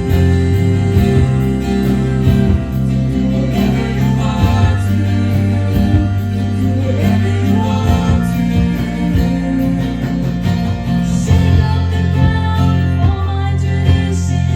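Live contemporary worship song: a band with guitar and held bass notes, with voices singing over it.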